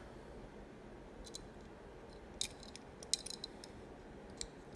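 A handful of faint, irregular small clicks as a die-cast model pickup truck is handled and turned in the fingers.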